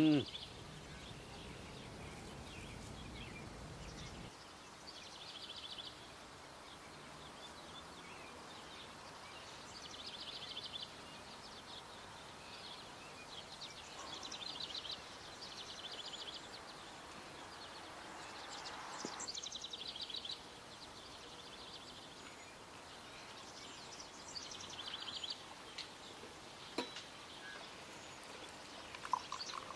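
Songbirds singing in short trilled phrases every few seconds over a faint steady background hiss. Near the end, tea is poured from a metal teapot into a glass.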